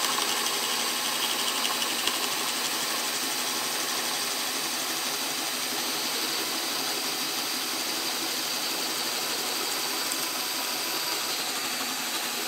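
Bosch brushless cordless drill on speed one, the low gear, boring a 1 3/8-inch hole into a thick wood block with a self-feeding spade bit. It runs steadily under load.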